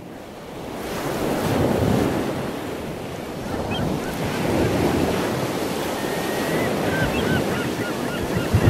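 Steady rushing of wind and sea water, swelling and easing, with a few faint high chirps in the second half.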